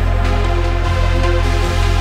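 Background electronic music with a heavy bass line of held notes that changes every half second or so.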